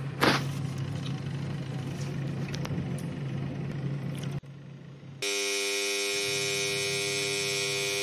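Croma CRAW2221 semi-automatic twin-tub washing machine: the wash motor hums and the water churns, then both stop about four seconds in. About a second later the end-of-wash alarm buzzer sounds, a steady unbroken buzz, signalling that the wash timer is running out.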